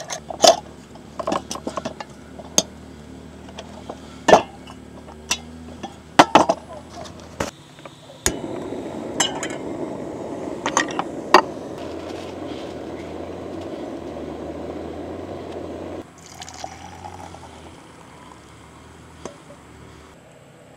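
Small clinks and knocks of coffee gear being handled, then hot water poured in a steady stream for about eight seconds for a pour-over coffee, stopping abruptly.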